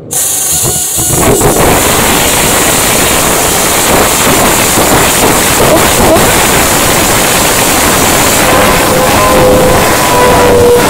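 Andrea Moda S921 Formula 1 car's engine firing up on an external starter. It catches with a sudden jump in loudness right at the start, then runs loud and steady. Wind buffets the microphone.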